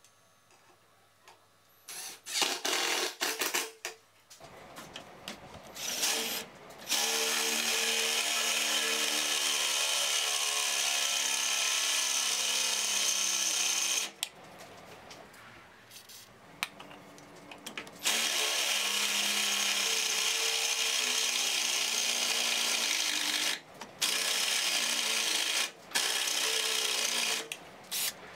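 Ryobi 18 V cordless drill boring holes through a steel frame with a twist bit, the motor running in a few short bursts and then in long steady runs of several seconds with brief pauses between them.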